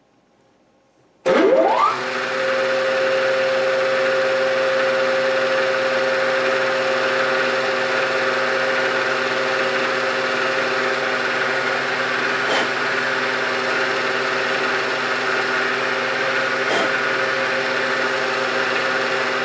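Machine-tool spindle motor switched on about a second in, its pitch rising briefly as it spins up, then running with a steady whine while it drives a 1/4 inch center drill. Two faint ticks later on.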